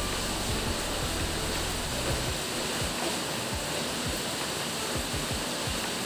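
Steady hiss of background noise, with faint low bumps from about two seconds in.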